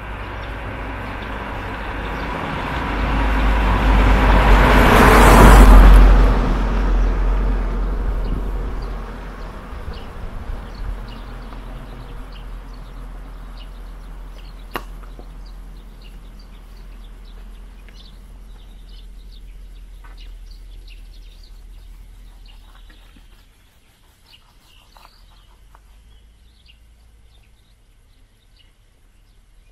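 A vehicle passes, swelling to a loud rumbling rush about five seconds in and slowly fading away over the next fifteen seconds. Birds chirp faintly as it dies away.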